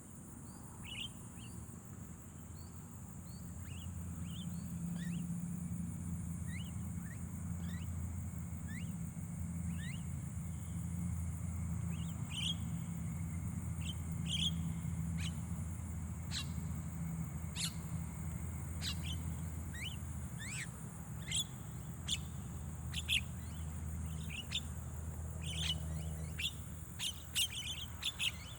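Javan mynas (jalak kebo) calling: a scattered series of short, sharp chirps that come thicker and louder in the second half, over a steady low hum.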